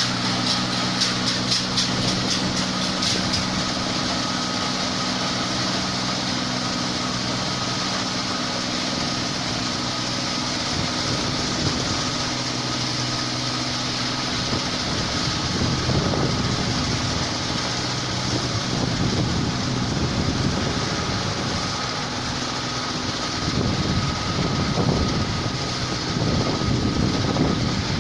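New Holland 8070 combine harvester running steadily, engine and threshing machinery together. A fast regular clatter of about four beats a second fades out after the first few seconds, and a low rumble swells and eases in the second half.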